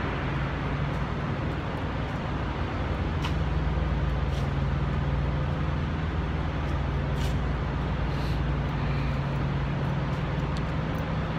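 A steady low machine drone with a constant hum and no change in pitch, and a few faint light ticks over it.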